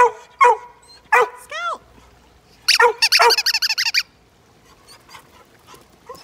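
German shorthaired pointer barking and yelping: three sharp barks in the first second or so, then a short rising-and-falling whine, then a fast run of high yips lasting about a second near the middle.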